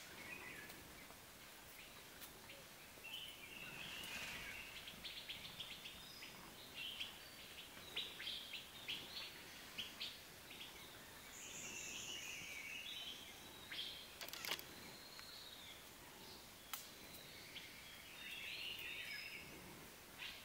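Small birds chirping and twittering faintly in scattered bursts, with a couple of sharp clicks, the loudest about fourteen seconds in.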